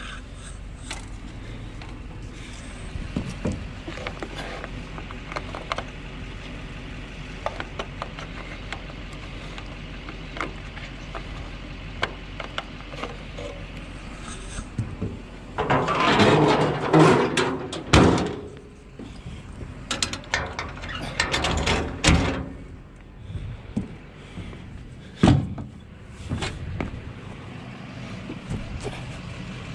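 Clicks and knocks of hands working on an excavator's engine compartment, the engine not running, with a louder clattering stretch of about two seconds halfway through, a few more clunks, and a single sharp knock near the end: the engine hood and panels being handled and shut after a fluid check.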